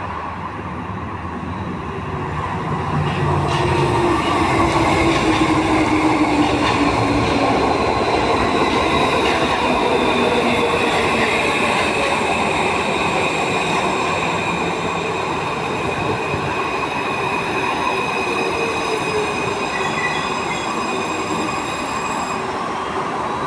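An Alstom AS-02 metro train arrives at a station and brakes to a stop. Its running noise swells as it draws level, about three seconds in, and then slowly fades. Through it, a whine falls in pitch as the train slows, and a high steady squeal comes in over the later part.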